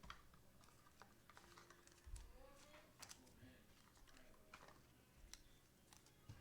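Faint, scattered clicks and soft taps of trading cards being handled and flipped through, with a couple of light thumps, against near silence.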